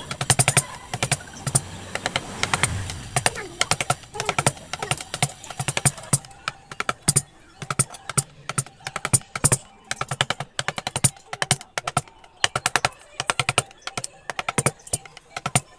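Mallet tapping a carving chisel into wood in quick, irregular runs of sharp taps.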